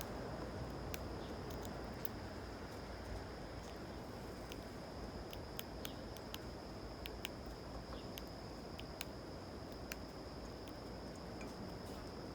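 Backyard ambience: a steady, high-pitched insect trill that keeps going without a break, with scattered sharp, short clicks over a low rumble.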